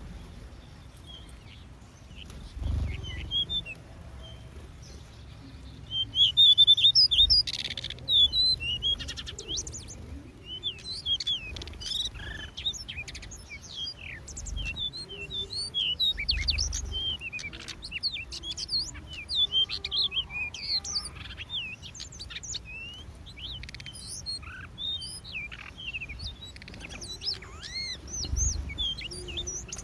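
Many small aviary birds chirping and twittering in quick, short high calls, sparse at first and busy from about six seconds in, with a few brief low rumbles underneath.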